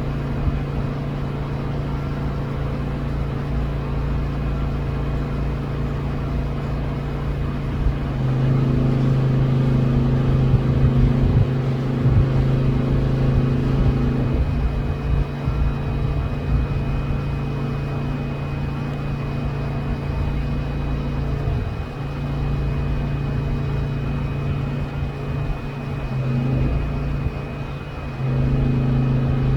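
A steady low engine hum, like a motor vehicle running at idle, that shifts in strength a few times.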